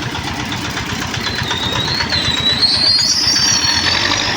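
Vehicle engines running steadily, with a thin high squeal that wavers and rises from about a second in.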